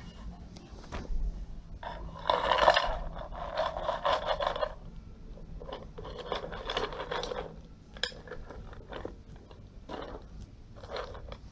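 Scraping and rustling as a wire-mesh cage and a plastic container are handled and shifted on dry grass. It comes in two longer stretches, with a couple of short scrapes near the end.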